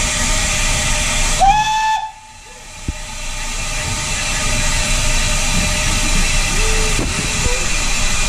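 Schools-class steam locomotive No. 926 Repton hissing steam steadily, with a short whistle about a second and a half in. The hiss cuts off suddenly just after, then builds back up as steam hisses from around the cylinders.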